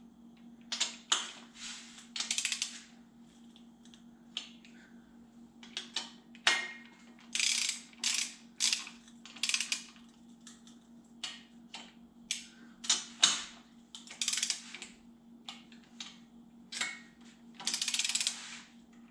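Ratcheting torque wrench worked in repeated short strokes, its pawl clicking in quick bursts as bolts are tightened down to torque on an air-cooled VW engine. A faint steady hum runs underneath.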